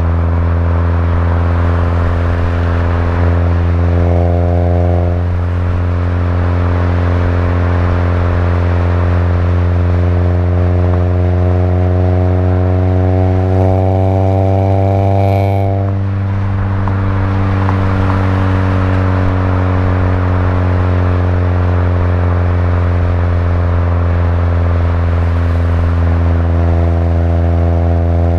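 Exhaust of an Alfa Romeo 159 1750 TBi turbocharged four-cylinder, with a downpipe and its mid silencer removed, droning steadily as the car drives. The note rises briefly about four seconds in, climbs again a little before the middle, and drops as the throttle eases.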